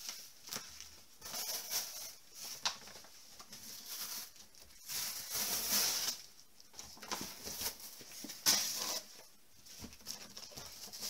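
Rustling and crackling of packaging as a cardboard shipping box is handled and a bag of clothes is pulled out and worked at, in uneven spells with sharp crackles, the sharpest about three-quarters of the way through.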